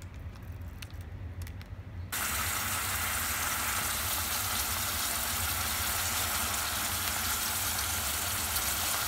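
Clams cooking in oil in a pot, a steady sizzle that starts abruptly about two seconds in; before it, only a low hum and a few faint clicks.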